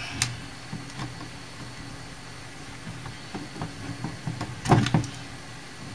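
Small plastic clicks and rattles of the opened cordless hand mixer's housing and wiring being handled as its battery connector is unplugged, with a louder clatter about three-quarters of the way through.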